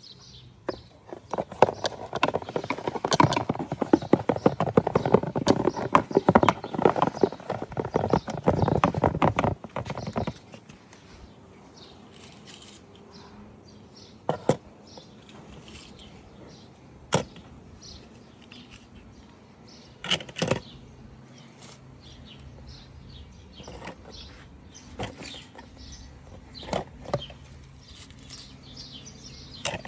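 Unboxing handling noises: dense crinkling and clicking of plastic packaging for about the first ten seconds, then a few scattered single clicks and taps.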